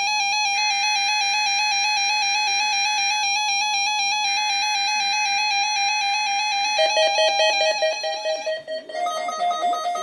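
Several NOAA weather radios sounding their electronic alert tones at once for a Required Weekly Test: a fast warbling beep over a steady higher tone. About seven seconds in, and again about nine seconds in, the mix changes as other radios' alarm tones take over.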